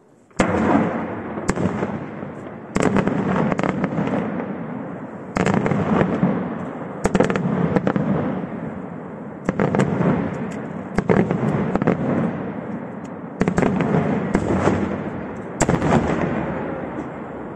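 Aerial firework shells bursting in a display, a sharp bang every second or so. Each bang is followed by a long rumble that trails off, and the last rumble fades near the end.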